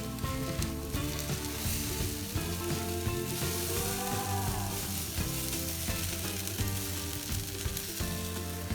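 Syrniki frying in hot oil in a pan, with a steady sizzle that grows brighter for a second or so about two seconds in. Background music with changing notes plays over it.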